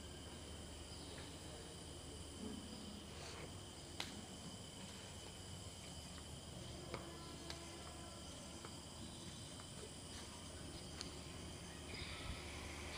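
Faint steady background ambience with a thin, high, constant whine and a few light clicks. Near the end a louder hiss rises.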